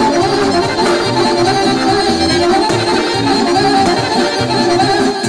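Accordion playing traditional folk music, with sustained chords over a regular bass pattern.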